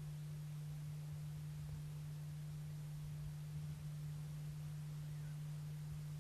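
A steady low hum, one unchanging tone, over faint hiss and a flickering low rumble.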